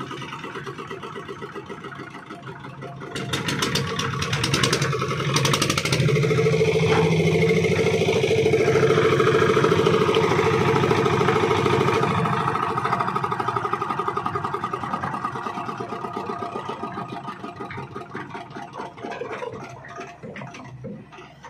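A portable concrete mixer's small engine running steadily, getting louder a few seconds in, loudest in the middle, then slowly fading off.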